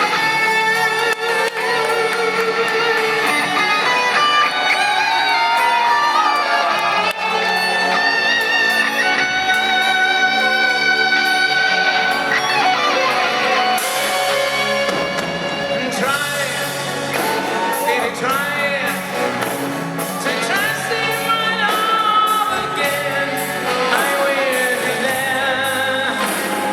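A live rock band playing in a large arena: electric guitars with a lead singer.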